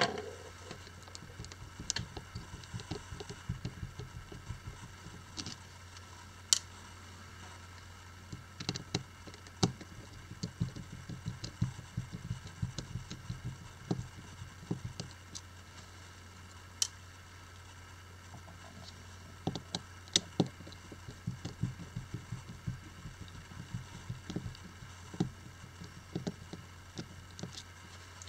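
Precision screwdriver turning tiny screws out of a smartphone's inner frame: irregular small clicks and sharp ticks of the bit and screws, with soft handling rustle, over a steady low hum.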